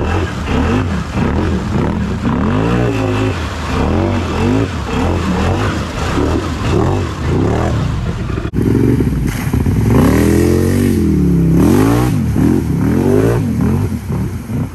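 Can-Am Outlander 800 ATV's V-twin engine revving hard in repeated rising and falling swells as it churns through a mud hole. Just past halfway the sound jumps abruptly and the swells run louder.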